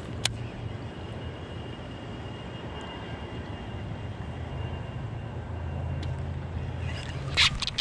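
A baitcasting reel clicks as a topwater frog is cast, over a steady low outdoor rumble. Near the end come loud, sharp splashes on the water as a snakehead strikes the frog.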